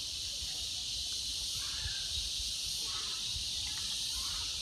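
Steady outdoor background ambience: a constant high hiss with an uneven low rumble and a few faint, short distant chirps.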